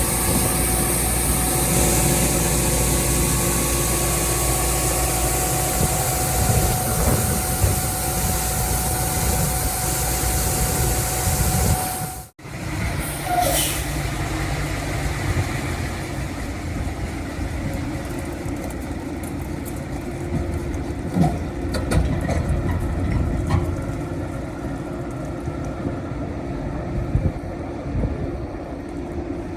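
Case IH Axial-Flow combine running steadily while harvesting corn: a continuous engine and machinery drone with a steady whine through it. It drops out briefly about twelve seconds in, then resumes with less high hiss.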